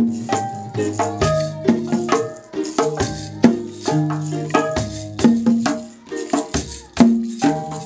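Traditional Ugandan string-and-percussion music: plucked harp strings play a repeating melody over deep bass notes, with a shaker rattle on the beat.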